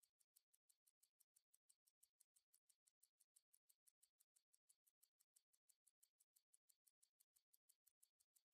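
Near silence, with only an extremely faint, rapid, even ticking, about six ticks a second.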